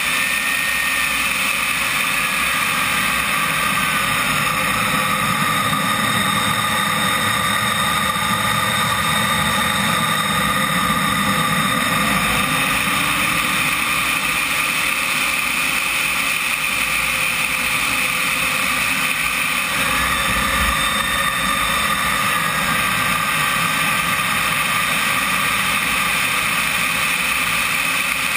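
Onboard sound of a CompARF Flash RC jet in flight: the small jet turbine's steady high whine over a rush of air past the camera, the pitch of the whine dipping and rising slightly a couple of times.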